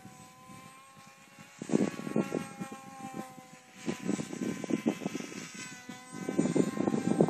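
Electric motor and propeller of a radio-controlled model plane whining steadily high overhead, its pitch sagging a little partway through. Gusts of wind rumble on the microphone several times.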